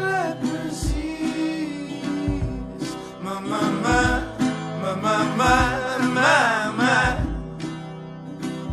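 Background music: a song with plucked acoustic guitar and a singing voice, the voice wavering on a held, ornamented line around the middle.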